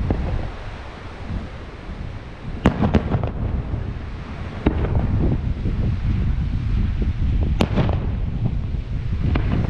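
Fireworks display: aerial shells bursting with sharp bangs, the loudest a pair about a third of a second apart near three seconds in, over a continuous low rumble of bursts and crackle that grows louder about halfway through.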